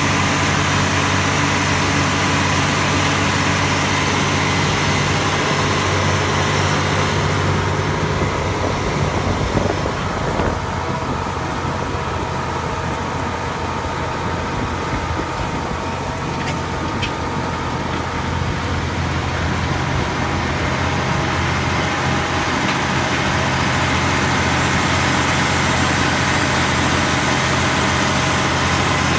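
John Deere 9450RT track tractor pulling a tillage implement through standing sweet clover: a loud, steady engine drone with a rushing noise over it. It eases slightly through the middle and builds again near the end.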